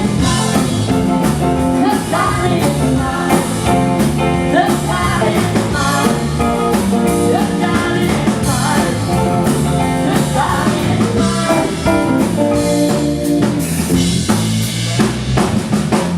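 Live rock and roll band playing at full volume, with drum kit and guitar.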